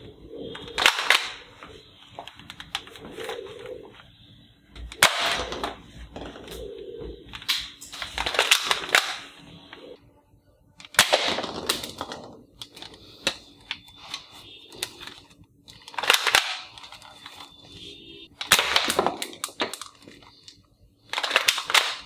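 Toy AK-47 rifle playing its gunfire sound effect in a series of short rattling bursts, each about a second long, with pauses between them as the trigger is pulled again and again.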